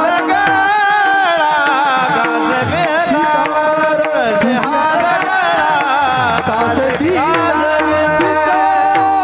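Male devotional kirtan singing of a Marathi abhang: a sustained, ornamented vocal line bending up and down over a steady drone, with pakhavaj drumming.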